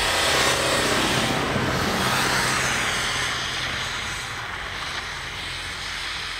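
Mazda pickup truck's engine under hard throttle as it ploughs through deep snow, with the hiss of spinning tyres throwing snow. Loudest in the first couple of seconds, then fading steadily as the truck pulls away.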